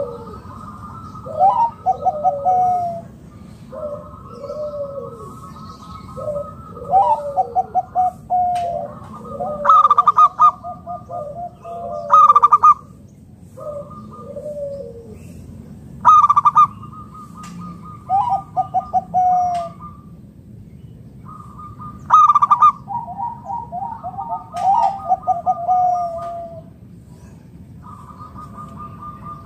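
Zebra doves cooing: repeated rolling, stuttering coo phrases of falling notes, some phrases starting with a sharp loud note. This is a local zebra dove's song, played as a lure to get other zebra doves to answer and sing.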